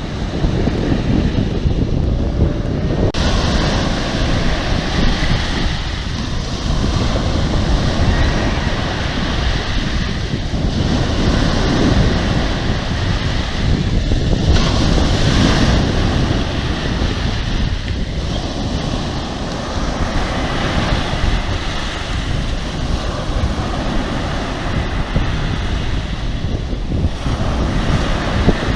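Sea waves rushing and breaking, with heavy wind buffeting the microphone that makes a constant low rumble; the noise swells and eases in slow surges.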